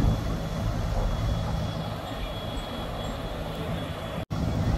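Passenger launch MV Tasrif-3's diesel engines running with a steady low rumble as the vessel comes in to the ghat, with a thin steady high whine over it. The sound cuts out for an instant near the end.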